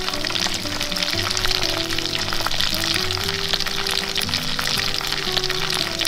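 Small whole fish frying in bubbling oil: a dense, steady sizzle with many fine crackles and pops.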